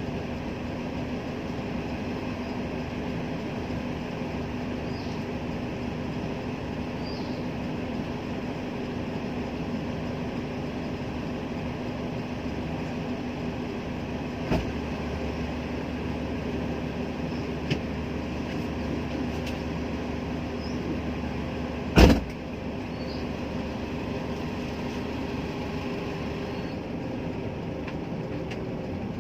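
Steady drone of a moving road vehicle, engine and road noise with a low hum. There are a couple of small clicks around the middle and one loud knock about three-quarters of the way through.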